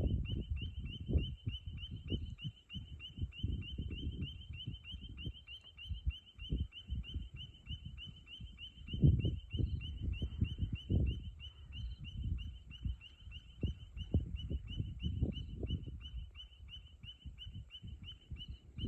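A high, rapid chirping call repeating evenly about four to five times a second without a break, over irregular low rumbling and thumps.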